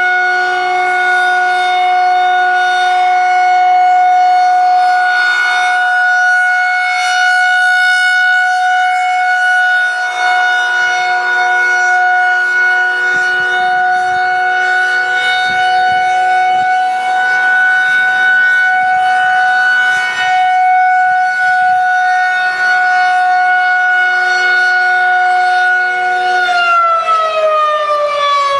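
Federal 2001-130 outdoor warning siren sounding a test: a loud, steady single-tone wail held at full pitch, which begins winding down, falling in pitch, about 26 seconds in.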